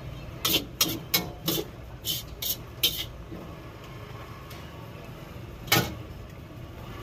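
Metal utensils knocking against a wok while noodles are stirred and tossed: a quick run of about eight clanks in the first three seconds, then one louder clank near the end, over a steady low hum.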